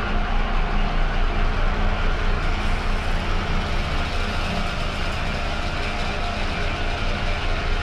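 Dark ambient drone: a steady, low, rumbling hum with a faint regular pulse, about two swells a second.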